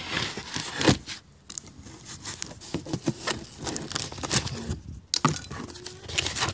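A cardboard shipping box being cut and pulled open by hand, with irregular scraping, tearing and rustling of cardboard and knocks of handling, one sharp knock about a second in.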